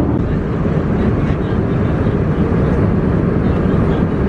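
Steady rushing engine and air noise inside a passenger airliner's cabin, heaviest in the low end.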